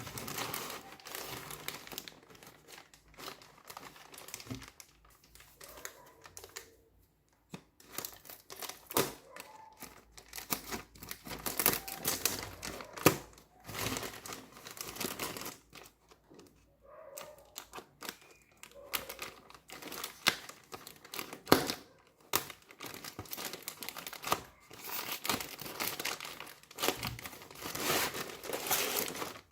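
Packaging being unwrapped by hand: plastic or paper crinkling and tearing in irregular bursts, with a couple of short pauses.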